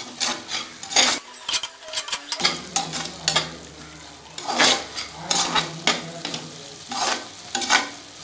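Metal spoon stirring and scraping a thick onion-tomato biryani masala frying in an aluminium pressure cooker, in repeated uneven strokes over a steady sizzle.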